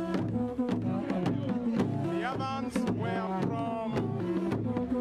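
Royal trumpet ensemble of long wooden trumpets playing a repeating pattern of low, interlocking held notes over steady drumming. A brief high warbling cry rises and falls a little past two seconds in.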